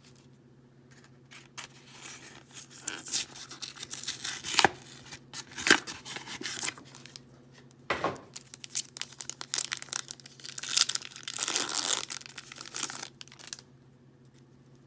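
Trading-card booster pack packaging being torn open and crinkled by hand, with a few sharp snaps and a longer burst of crinkling near the end.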